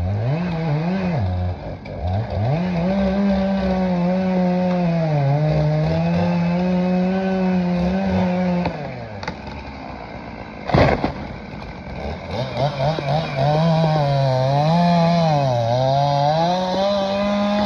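Two-stroke chainsaw at high revs cutting dead tree wood, its pitch sagging and recovering again and again as the chain bites in. The revs drop lower for a few seconds in the middle, with one loud thud about eleven seconds in, then it cuts hard again.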